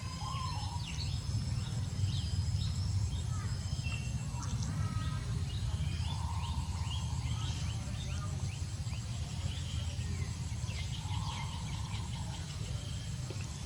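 Birds chirping repeatedly over a steady low rumble, with a couple of longer, lower calls, around six and eleven seconds in.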